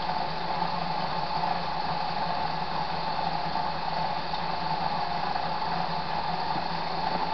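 HHO gas from a dry-cell generator bubbling steadily out of a discharge tube into a jar of water, over the steady hum of the alternator that powers the cells.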